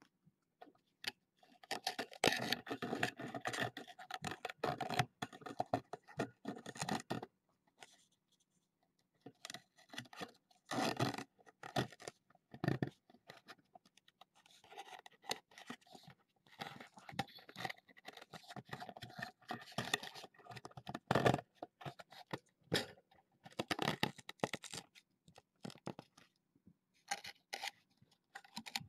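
A kitten scratching and rustling at a fabric-and-mesh play tunnel: irregular bursts of scratchy crinkling, several seconds long, with short pauses between.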